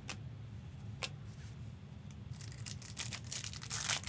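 Trading cards being handled: two single soft clicks, then a dense stretch of crinkling and rustling in the last second and a half or so that is loudest near the end.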